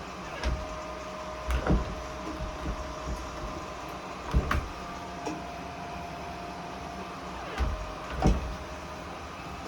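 A door is swung against a 3D-printed plastic door stopper, giving several short knocks, mostly in pairs. It makes soft plastic knocks instead of the scraping of the old metal stopper.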